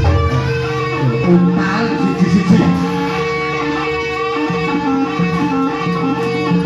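Live jaranan buto dance accompaniment music playing continuously: a held drone tone under a moving melody.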